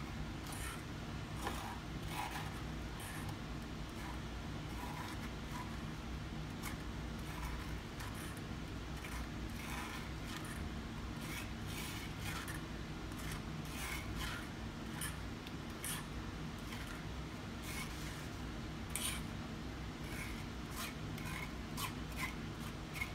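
Small metal spoon scraping and pressing kiwi pulp and seeds against a fine wire-mesh strainer, in many short, irregular strokes.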